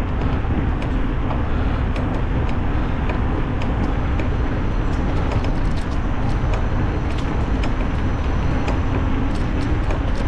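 Wind rushing over the microphone with steady low rumble of tyres rolling on pavement while riding an electric bicycle, with scattered light ticks and clicks throughout.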